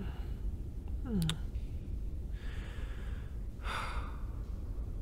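A man's breathing and sighs: a short falling hum about a second in, then two breathy exhales, over a steady low rumble.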